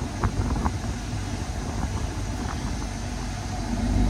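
Jeep Wrangler Rubicon engine idling steadily with the air conditioning switched on, with a few light clicks in the first second.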